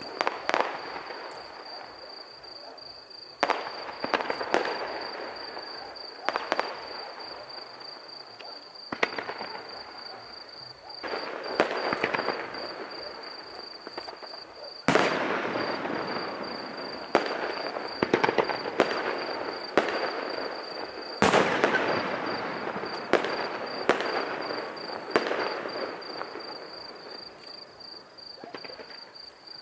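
Aerial fireworks shells bursting in a display, a string of sharp bangs at uneven intervals, each followed by a long echoing tail. The loudest bursts come about 15 and 21 seconds in.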